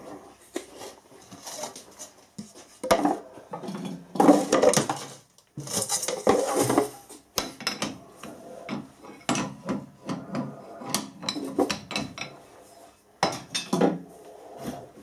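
Irregular metal clanks, clatters and knocks, with a wooden board set down on the lathe bed, as the three-jaw chuck of a Harrison lathe is readied for removal from the spindle.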